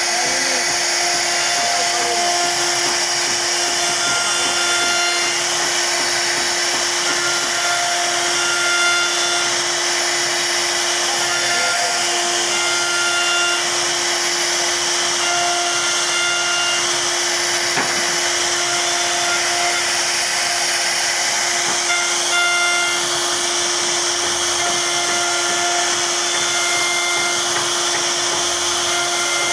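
CNC router spindle cutting a relief carving into a wooden panel: a steady high whine over the hiss of the cutter in the wood, with short tones that come and go every second or two.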